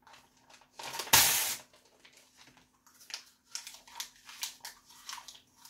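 A piece of printed paper torn off with the teeth: one loud rip about a second in, then the paper crackling and crinkling in short strokes as it is chewed.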